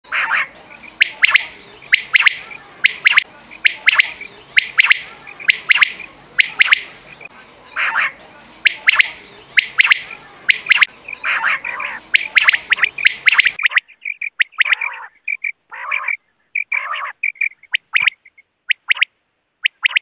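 Rain quail calling: sharp, high notes repeated again and again, mostly in quick pairs and runs. A steady background hiss cuts out suddenly about two-thirds of the way through while the calls go on.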